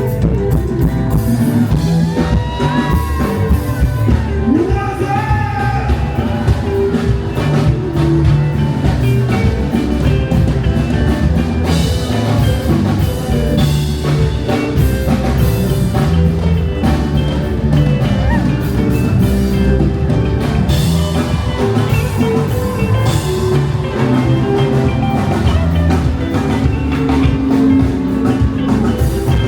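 Live band music with drums and guitar, and a voice singing.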